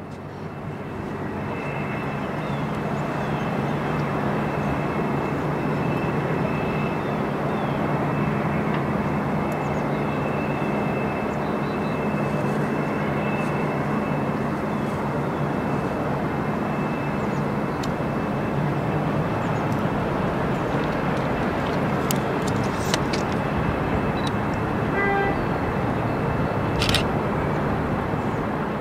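Diesel locomotive's engine running steadily at low throttle, a low hum with a faint high whine over it, as the locomotive idles and then creeps forward. A few short clicks come near the end.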